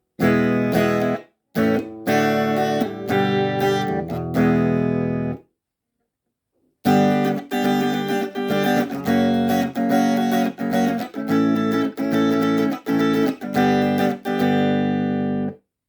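Electric guitar played straight into a small PCL86 valve amplifier with no effects, chords strummed one after another. The playing pauses briefly a little over a second in and for about a second and a half in the middle.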